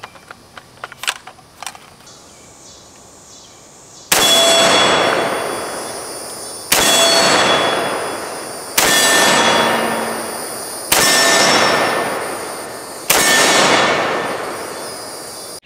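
A few light handling clicks, then five single shots from an AR-10 rifle in .308, about two seconds apart. Each report fades out over about two seconds with a steady metallic ring in its tail: the bullet striking a steel target.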